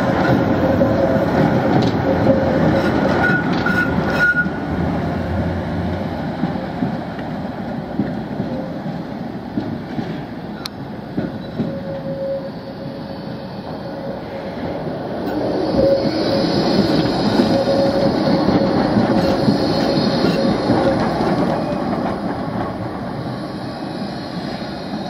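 Trams running on street track, rolling noise with a steady motor whine. One passes close at the start. Another comes on about 15 seconds in, its wheels squealing high on the curve for several seconds.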